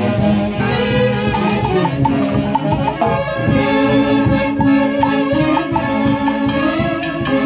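Live Peruvian orquesta music: a held, moving melody with percussion strikes underneath.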